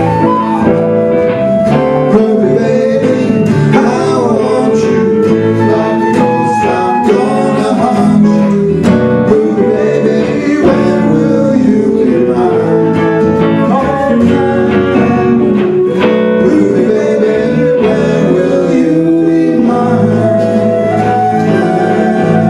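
A band playing a song: singing over guitar and a backing band, at a steady, full level.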